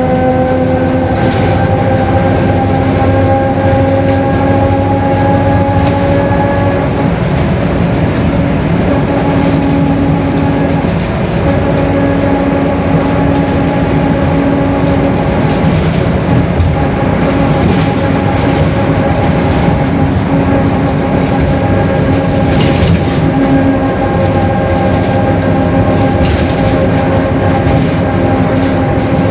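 Mercedes-Benz OF-1721 city bus under way: running noise from the drivetrain with a steady, pitched differential whine. The differential is growling. The whine rises slightly in pitch over the first several seconds, then holds level, dropping out briefly a few times.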